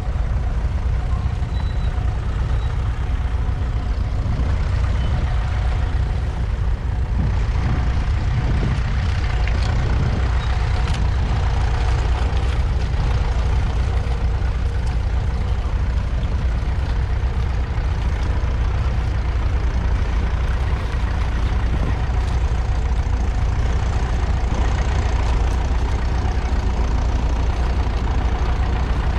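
A 1954 Ferguson TEF20's 2.1-litre four-cylinder diesel engine running steadily and loudly.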